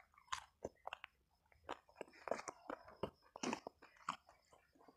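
Close-up chewing of fried fish and rice eaten by hand: a quick, irregular series of short wet mouth clicks and smacks.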